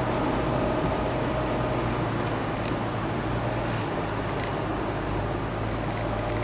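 Steady road and engine noise inside a moving car's cabin, with a low hum and a faint steady tone underneath.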